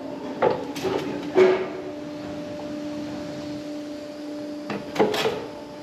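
Scattered knocks and metal clanks from work on a barn's manure-channel scraper, over a steady mechanical hum that cuts out near the end.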